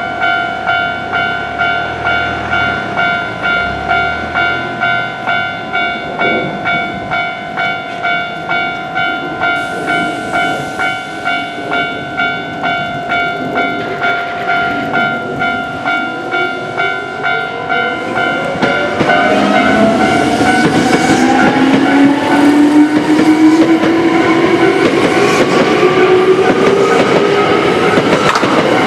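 A Japanese railroad crossing's electronic warning bell rings with a steady, evenly repeating ding. About two-thirds of the way through, a Hankyu electric train passes close by, louder than the bell: wheel and rail noise with a whine that rises steadily in pitch as it accelerates, while the bell keeps ringing underneath.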